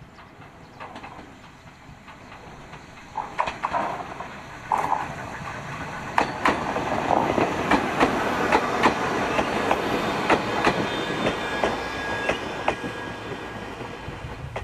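Ueda Electric Railway electric train approaching and passing, its wheels clicking over rail joints, growing louder from about three seconds in. A faint high whine runs briefly near the end.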